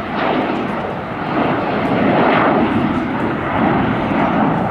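Jet airliner engines, a loud, steady rushing noise that swells and eases slowly as the plane passes.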